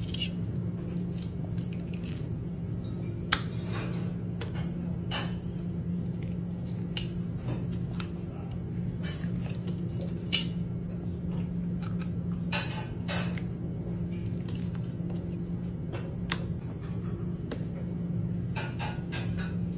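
Knife filleting small fish on a plastic cutting board: scattered light clicks, taps and scrapes of the blade against the board and through the fish. Under it runs a steady low machine hum.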